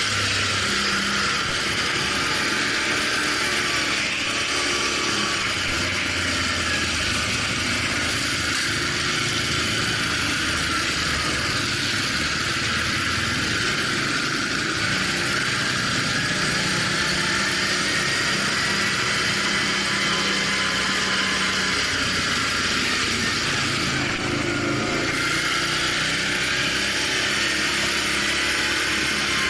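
Off-road vehicle under way: the engine runs at held pitches that step up and down every few seconds, over a steady loud hiss of wind and terrain noise.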